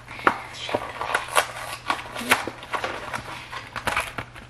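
Cardboard frozen-meal box being handled and pulled open: a run of irregular crackles and rustles, with a few sharper snaps.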